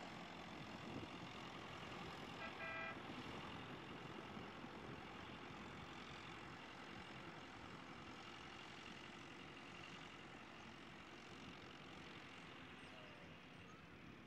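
Several vintage tractor engines running faintly at a distance, slowly fading as the tractors drive away. A short horn toot sounds about two and a half seconds in.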